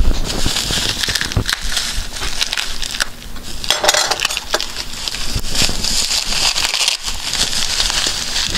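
Bubble wrap crackling and crinkling as it is cut with a utility knife and pulled open by hand, with a thump right at the start.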